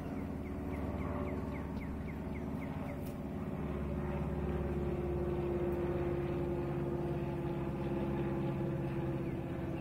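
Cessna 172 single-engine propeller plane flying overhead: a steady drone of the piston engine and propeller, growing a little louder about four seconds in as it passes closer.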